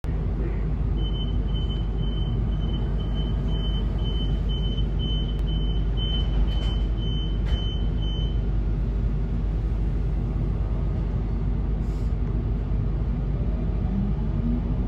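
Sydney Trains Millennium (M-set) electric train standing at a platform, with the steady low hum of its onboard equipment. A second in, a high door-closing warning beeps about fifteen times, roughly two a second, with a couple of knocks near its end. Near the end the traction motors start a rising whine as the train pulls away.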